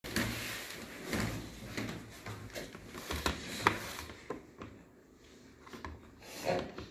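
Marker pen scratching on a small whiteboard as words are written, in short irregular strokes, with knocks and handling noise from the board on a wooden table and a louder scrape near the end.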